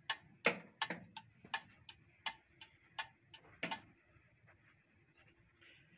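Crickets chirping in a steady high trill, with irregular sharp clicks and knocks over it, the loudest about half a second in and just before the four-second mark.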